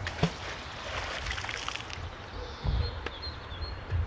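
A neodymium fishing magnet on a rope thrown into the water, landing with a sharp splash just after the start and a wash of water noise that dies away over the next couple of seconds. Wind buffets the microphone with low rumbles, and a bird chirps briefly near the end.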